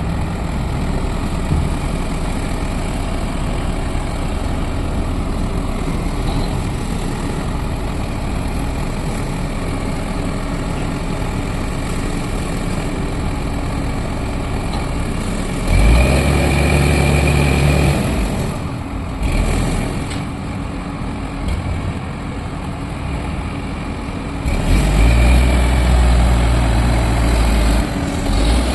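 Heavy machine's diesel engine running steadily. It revs up twice, for a couple of seconds about halfway through and again near the end, with a deeper rumble and a thin high whine each time it speeds up.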